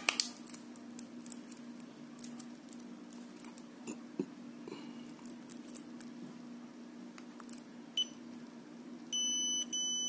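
Xiaomi Yi action camera beeping as it powers on: one short high beep about eight seconds in, then louder repeated beeps near the end. Before that, light plastic clicks from handling the camera.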